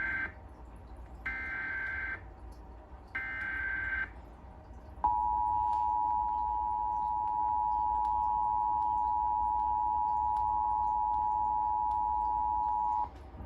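Emergency Alert System test tones: the end of the first of three short warbling SAME digital header bursts, then the second and third about a second apart, then after a brief gap the steady two-tone EAS attention signal, which runs about eight seconds and cuts off abruptly.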